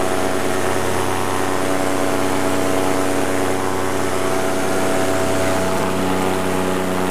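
Paramotor engine and propeller running steadily in flight, heard from the pilot's seat, with a rushing noise over it; the engine's tone shifts slightly about six seconds in.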